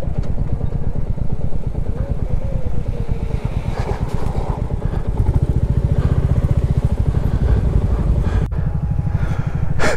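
Royal Enfield Classic 350's single-cylinder engine running, its beat a little louder from about five seconds in.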